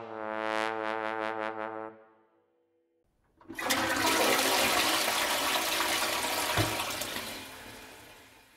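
A brass music sting fades out on a held chord. After about a second of silence, a toilet flushes: a sudden rush of water that runs for several seconds and dies away near the end.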